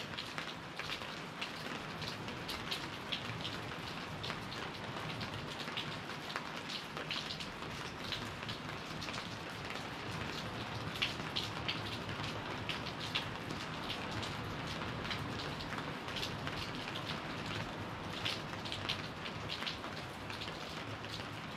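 Steady tropical rain, with many sharp drips and splashes of drops landing close by.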